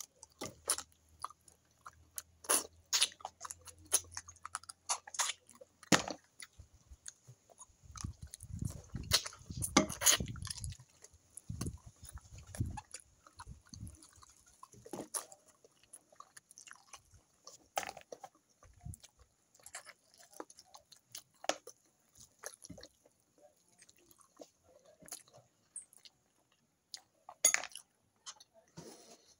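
A person chewing and eating fish stew with rice by hand, close to the microphone: a continuous run of short, sharp mouth clicks that is busiest about a third of the way in.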